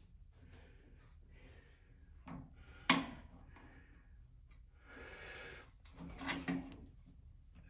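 Scattered clicks and knocks of tools and parts being handled while a fuel hose and clamp are fitted under a truck; the sharpest knock comes about three seconds in, with a brief rustle a little past the middle and two more knocks shortly after.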